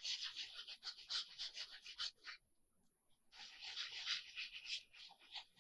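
Fine-tip plastic applicator bottle of Fabri-Tac glue scratching across a sheet of paper as glue is laid down: two spells of quick, faint scratchy strokes with a pause of about a second between them.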